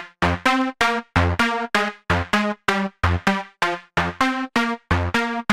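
Layered synth pluck lead playing short stabs in a repeating melodic pattern, about four a second. The sound is a very short plucky top layer, an octave-lower layer and a snare sample, grouped through an overdrive and a glue compressor with a slow attack and very fast release, so each note's initial hit pops out.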